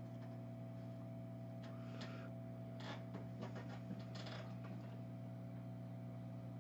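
Steady low electrical hum from the repair bench, with a few faint short scrapes of a tool working on the phone's circuit board about 2, 3 and 4 seconds in.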